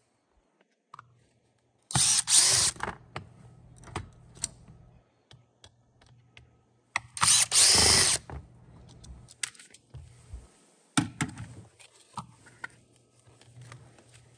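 DeWalt 20V MAX cordless drill/driver running in two short bursts, each about a second, backing screws out of a massage chair's bottom skirt panel. Clicks and knocks follow as the loosened panel is handled.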